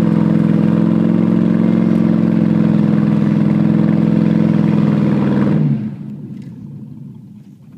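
2003 GMC Sierra 2500's V8 held at steady high revs as the stuck truck spins its tires in mud, then the revs fall away suddenly about five and a half seconds in, leaving the engine running quietly.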